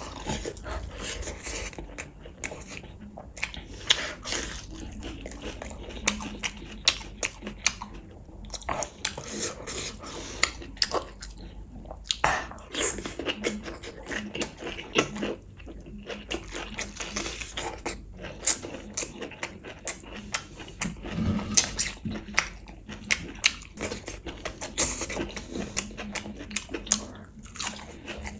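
Wet chewing, lip smacking and biting on beef bone meat and bamboo shoot in a chilli gravy, with many quick, irregular clicks and smacks.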